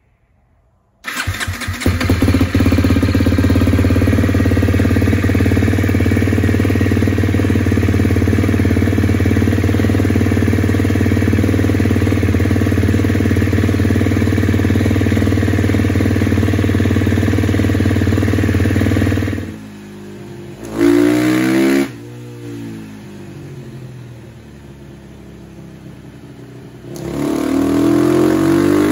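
KTM 250 SX-F single-cylinder four-stroke dirt-bike engine comes in suddenly about a second in and runs loud and steady. It drops to a quieter idle after about twenty seconds, with one short rev. Near the end it revs up again in a rising pull, a third-gear dyno run with traction control on.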